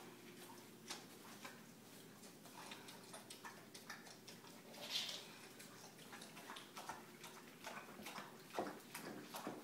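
Dog eating from a metal bowl through a mesh muzzle: faint, irregular clicks and wet smacking as the muzzle and mouth work at the food, with one louder wet burst about halfway through.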